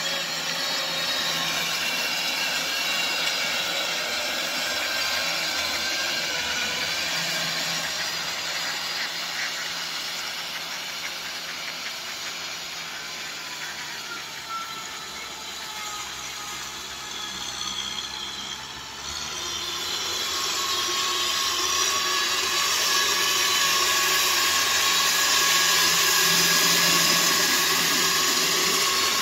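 Kubota M6040SU tractor's diesel engine running steadily under load while its rear rotary tiller churns through wet mud. The sound grows louder and brighter about two-thirds of the way through, as the tiller comes close.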